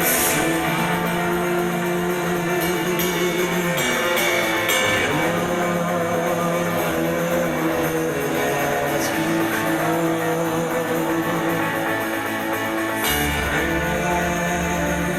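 Music led by guitar, sustained chords changing every few seconds; a heavy low bass comes in about thirteen seconds in.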